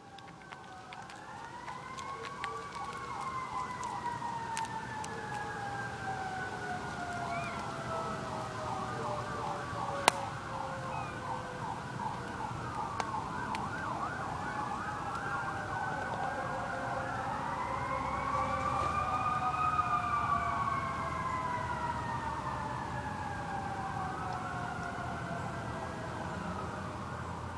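Several fire truck sirens wailing at once, their pitches slowly rising and falling over one another, with a fast yelp pattern in the middle. The sound builds, is loudest about two-thirds through, then eases off. A single sharp click sounds about a third of the way in.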